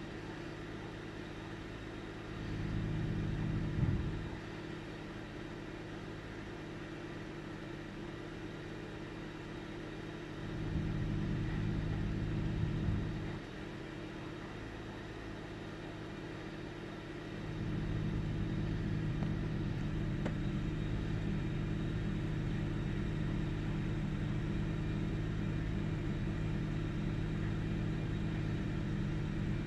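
1998 Ford Taurus OHV V6 engine idling, heard with the hood open, a steady hum that grows louder and deeper for a few seconds twice and then stays louder for the last third. The owner is filming this idle to catch an intermittent rough running, sputtering and RPM fluctuation of unknown cause.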